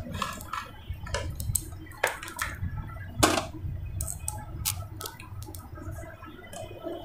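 Irregular clicks and taps of cables, connectors and small parts being handled on an opened LED TV's chassis, the loudest tap a little over three seconds in.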